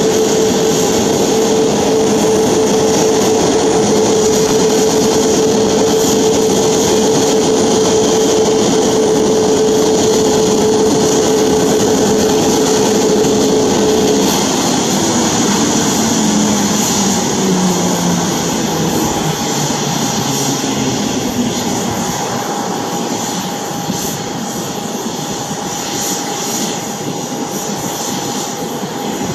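Boeing 737 MAX 8's CFM LEAP-1B jet engines idling with a steady whine, then winding down from about halfway through, the whine falling in pitch and the noise easing as the engines are shut down.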